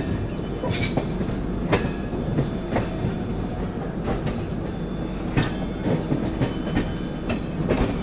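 Railway coach wheels rumbling and clacking over rail joints and points, with irregular sharp clacks and a brief high wheel squeal about a second in.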